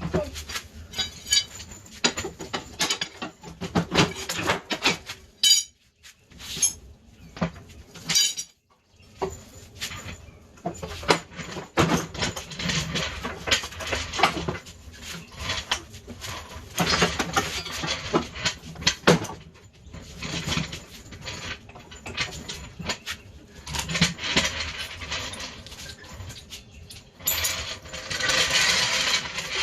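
Metal tools and parts clinking and knocking in an irregular run of clicks and clanks as an ATV engine is worked loose, with a longer rough scraping noise near the end.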